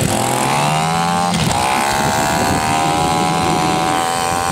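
Minibike's small engine accelerating under throttle: its pitch climbs for about a second and a half, dips briefly, then rises again and holds steady at speed.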